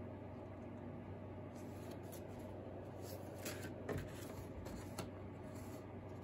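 Sheets of drawing paper rustling and sliding as they are handled and laid on a wooden desk, with a couple of soft knocks about four and five seconds in, over a low steady hum.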